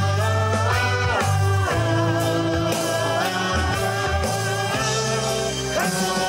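A rock band playing a song live: a male singer over electric guitars and bass guitar.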